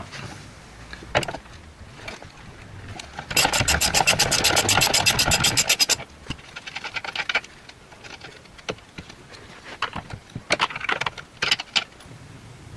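Socket ratchet turning the 3/4-inch nut on the end of a classic Mini's rear radius arm pivot pin: a run of rapid, even clicks, about ten a second, for a couple of seconds, followed by scattered lighter clicks and knocks as the nut is worked off.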